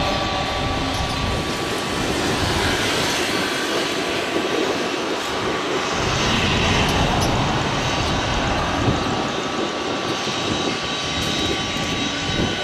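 Twin-turbofan business jet taxiing at low thrust: a steady engine rumble with a thin, high, steady whine over it.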